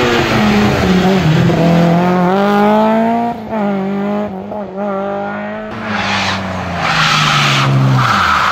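Peugeot 106 rally car accelerating hard, its engine note climbing through the gears with two short breaks at the gear changes. The note then falls away steadily as the car passes and drives off, with a hiss of tyre noise rising near the end.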